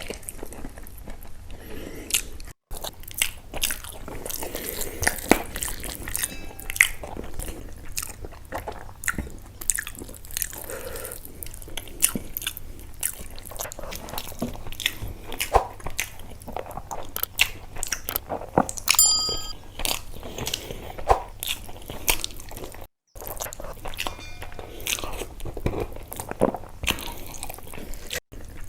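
Close-miked eating sounds: chewing a mouthful of rice and fish curry, with wet mouth smacks, crunching and many quick, irregular clicks.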